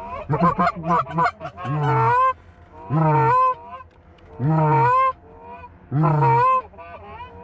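Canada goose call, a single caller: a fast run of short clucks, then four long honks spaced about a second and a half apart, each breaking from a low note up to a high one.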